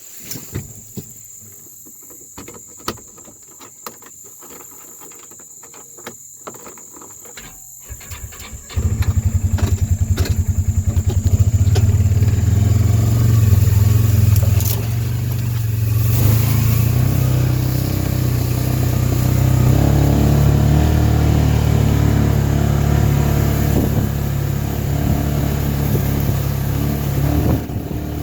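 Side-by-side utility vehicle's engine starting after several seconds of clicks and knocks, then running as the vehicle drives off, its pitch rising and falling.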